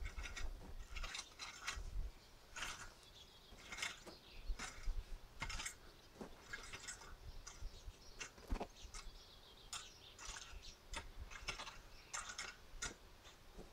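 Garden rake scratching through loose soil and grass seed in short, irregular strokes, faint.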